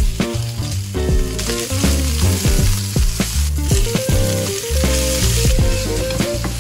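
Sliced onions sizzling as they fry in hot oil in a steel pan, stirred with a wooden spatula. The hiss strengthens about one and a half seconds in. Background music with steady bass notes plays throughout.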